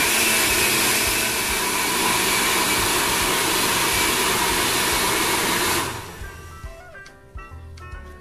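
Countertop blender running steadily at speed, puréeing mango pieces with no water added; it stops suddenly about six seconds in, leaving background music.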